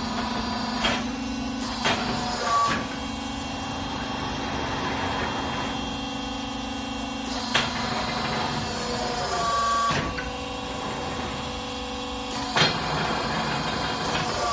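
Plywood veneer plate assembly machine running with a steady hum. Sharp mechanical clacks come at irregular intervals, about half a dozen of them.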